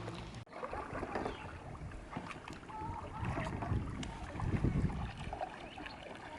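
Kayak on a river with water noise and wind buffeting the microphone, the low rumble of the wind rising strongest between about three and five seconds in.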